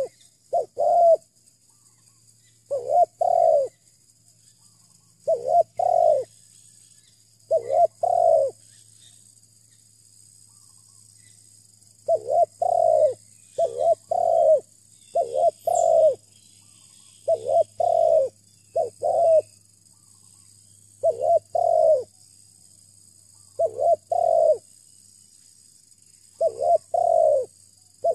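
Spotted dove (terkukur) cooing: short low coos in clusters of two or three notes, repeated every two to three seconds, with a pause of a few seconds near the middle.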